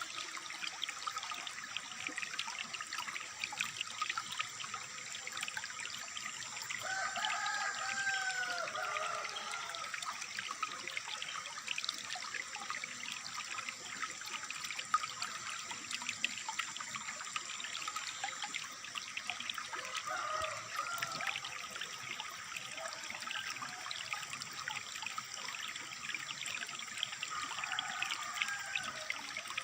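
Water trickling and splashing steadily, with a bird giving short arching calls now and then: a few seconds in, around a quarter of the way in, past halfway and near the end. A thin steady high tone sounds along with them and stops a little past halfway.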